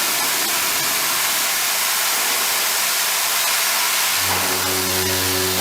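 Heavy milling on a milling machine: a steady, dense hissing noise of the cut. About four seconds in, a steady low hum made of several even tones starts alongside it.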